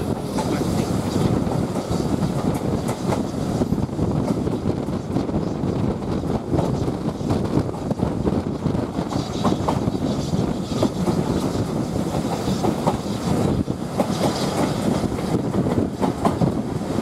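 A railway carriage running at speed, heard from an open window: a steady rumble with irregular wheel clicks over the rail joints.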